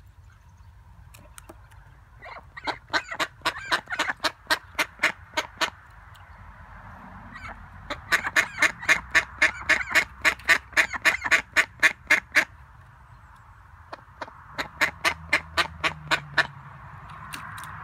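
Domestic duck quacking in three runs of short, repeated quacks, the middle run the loudest and fastest at about four quacks a second.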